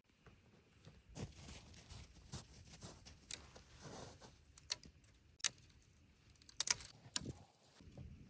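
Rustling with a series of sharp, bright clicks and clinks, the loudest a quick cluster about two-thirds of the way through.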